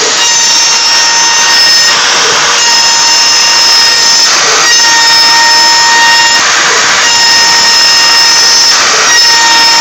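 A milling cutter in a power tool machining wood: a steady high motor whine, with a burst of rough cutting noise about every two seconds as the cutter bites into the wood.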